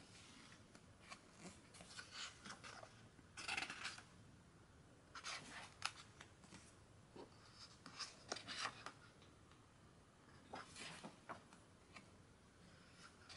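Pages of a thick hardcover photobook being turned by hand: a series of soft paper swishes and rustles, one every couple of seconds.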